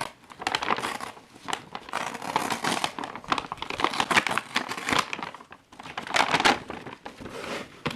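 Mail packaging being opened by hand: irregular crinkling and rustling, louder in several bursts.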